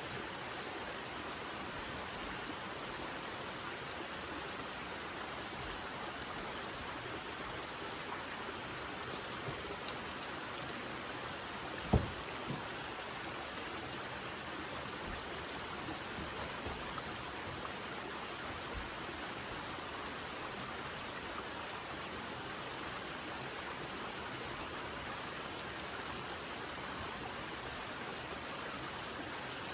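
Steady rush of stream water, with one sharp knock about twelve seconds in and a few faint taps around it.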